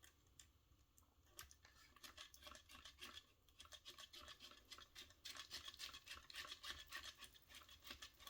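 Faint, rapid scratching and ticking of an LED strip being pushed along the channel of a 3D-printed plastic lamp, getting denser and louder about halfway through.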